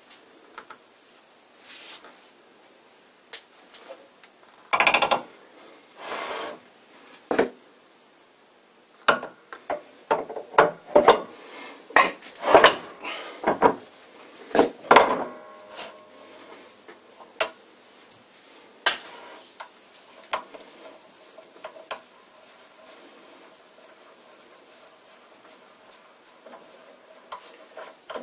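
Heavy cast-iron lathe parts being handled and set on the lathe bed: metal clanks, knocks and scrapes as the tailstock is fitted and slid along the ways. There are two longer scrapes about five seconds in, a busy run of clanks in the middle, and only scattered light clicks later.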